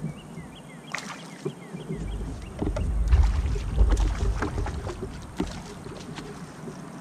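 Clicks and knocks of fishing rod, reel and gear handled aboard a kayak, with a low rumble that swells through the middle.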